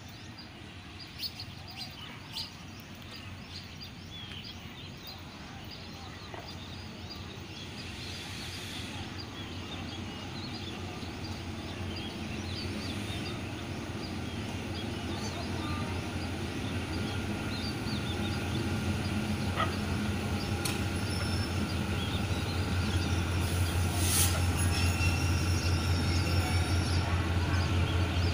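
Diesel locomotive of an approaching passenger train, its low engine drone growing steadily louder as it nears.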